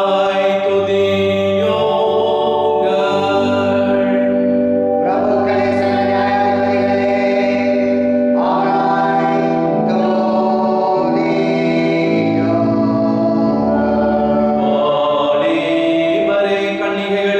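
A hymn being sung, with long held notes over sustained chords that shift every second or two.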